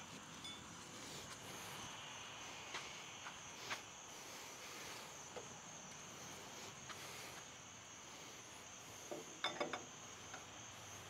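Steady high chirring of insects, likely crickets, with a few faint clicks and knocks: one about three seconds in, another near four seconds, and a quick cluster about nine and a half seconds in.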